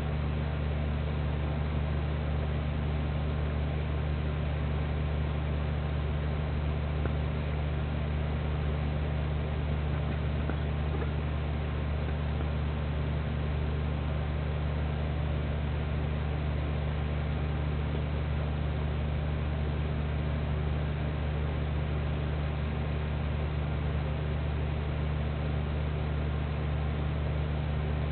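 Steady low hum over an even hiss, unchanging throughout.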